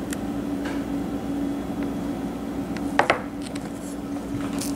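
Two quick hard knocks about three seconds in, a few lighter clicks, as a loaf of homemade soap is handled and cut with a knife or cutter on the counter. A steady low appliance hum runs underneath.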